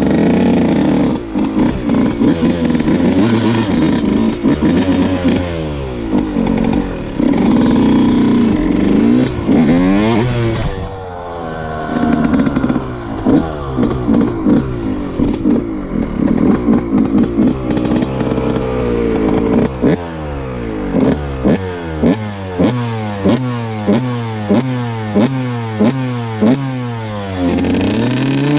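125 cc two-stroke dirt bike engine revving hard, its pitch rising and falling. From about two-thirds of the way in it gives a run of quick, even throttle blips, each a short rising rev, about one and a half a second.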